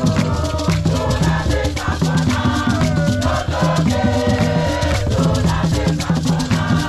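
Ghanaian drum ensemble playing large barrel hand drums in a driving rhythm while a big group sings in chorus over them, with a dense rattling percussion layer.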